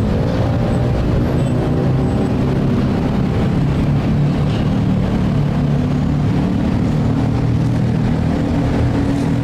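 Steady low drone of motor traffic, an engine hum that does not change.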